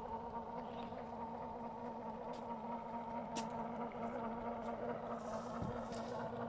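Small 12-volt electric oil extractor pump running with a steady hum, drawing engine oil out of the car's engine. A few faint ticks sound over it.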